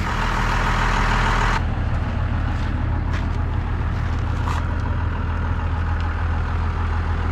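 A vehicle engine idling steadily with a deep, even rumble. A hiss sits over it for about the first second and a half, then drops away.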